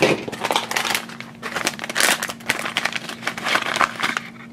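Foil blind-bag packet crinkling and rustling in the hands as it is opened and the keyring inside is pulled out.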